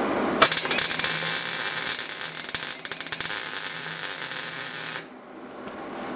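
MIG (wire-feed) welding arc crackling steadily while laying a tack weld to fix a flat-bar strip inside a steel pipe. It starts about half a second in and cuts off sharply about five seconds in, when the trigger is released.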